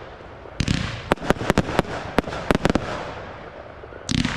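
Fireworks display: a shell bursts about half a second in, followed by a run of about ten sharp cracks over the next two seconds that fade into a lingering rumble. Near the end comes a short loud rush as the next effects are fired from the ground.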